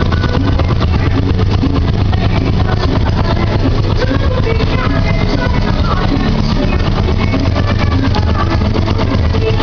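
TVS Apache RTR 150's single-cylinder four-stroke engine running steadily at idle in neutral, with music playing over it.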